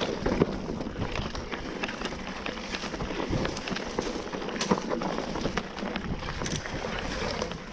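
Mountain bike riding over a rough, stony singletrack: a steady rush of tyre and wind noise with frequent small knocks and rattles from the bike.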